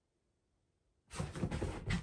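Shiba Inu's claws clicking quickly on a hard floor as it hurries in, starting about a second in.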